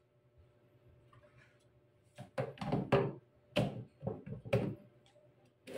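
Several irregular hard plastic knocks and clunks, starting about two seconds in, as a water purifier's plastic filter housing and its plastic housing wrench are handled and fitted together.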